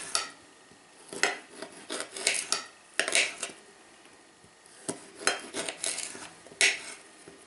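A kitchen knife scraping and shaving along a slab of spice-coated salted pork fat on a ceramic plate. It comes in short, irregular strokes, with the blade clinking against the plate now and then.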